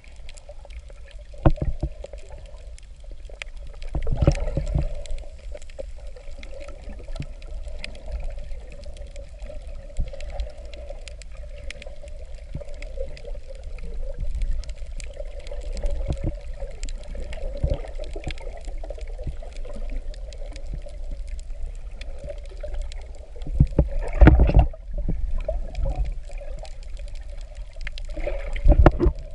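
Muffled underwater sound from a camera in its waterproof housing: a steady low rumble of moving water with a constant mid-pitched hum, and louder rushes of water about four seconds in, around twenty-four seconds in and near the end, plus a few sharp knocks.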